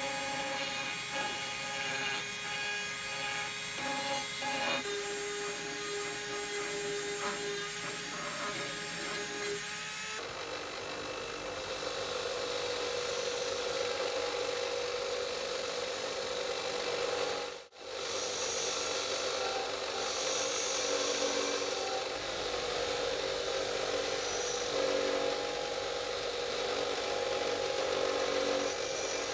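A handheld rotary tool with a sanding drum whines as it grinds down the pitted, rusty steel of a bayonet socket. About ten seconds in, the sound changes to a bench grinder's spinning wheel running with the steel socket held against it. There is a short break in the sound midway.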